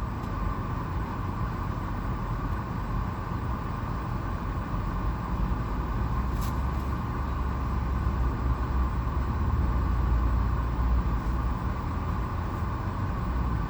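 Car engine idling in a drive-thru queue, heard from inside the cabin as a steady low rumble, with one faint click about six and a half seconds in.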